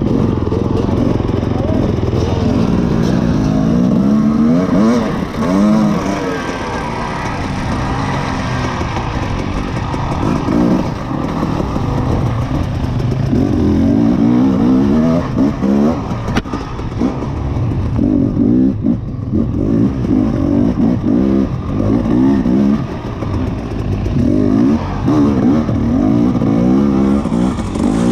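Off-road dirt bike engine revving up and dropping back again and again, its pitch rising and falling every second or two as the bike rides a tight wooded trail.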